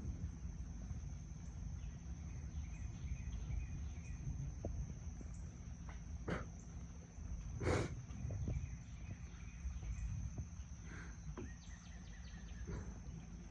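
Outdoor ambience under a building thunderstorm: a steady high insect drone and scattered bird chirps over a low steady background noise, broken by two sharp clicks about halfway through.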